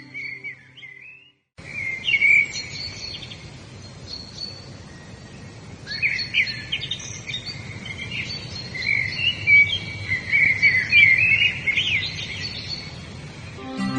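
Several songbirds chirping and warbling in quick overlapping phrases over a faint steady hiss, busiest in the middle and near the end, after a brief silent gap about a second and a half in.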